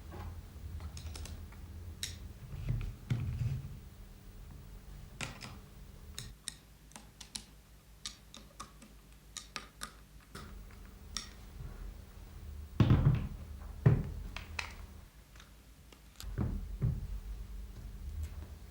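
Metal parts of a valve grinder's driving and grinding heads being handled and fitted together: scattered light clicks and taps, with a few heavier knocks, twice in quick succession about two-thirds of the way through.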